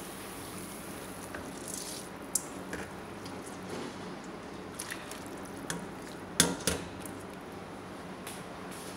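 A pot of water at a boil as basmati rice is added, a steady bubbling hiss under a few light clinks and knocks against the pot, the loudest a pair about two-thirds through.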